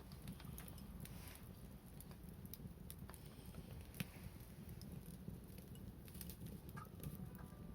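Wood fire crackling: scattered sharp pops and ticks over a low steady rumble, with one louder pop about four seconds in.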